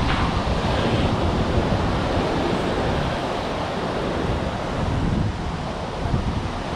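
Ocean surf surging and breaking over the rock shelf at the foot of the cliff, a steady wash of white water, with wind buffeting the microphone.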